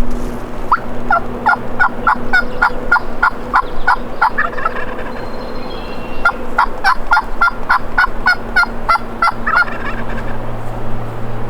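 Turkey calling in two runs of rapid, repeated notes, each lasting about three seconds with a short pause between. A steady low engine hum runs underneath.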